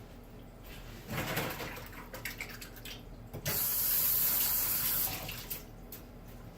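Water running from a kitchen tap into a sink: about two seconds of uneven splashing with a few knocks, then a steady stream for about a second and a half that is shut off.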